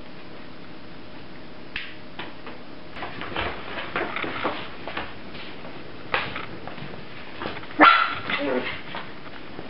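Five-week-old puppies yipping and giving small barks and whimpers as they play-fight, in short scattered calls. The loudest, sharpest yip comes late on, followed by a brief falling whine.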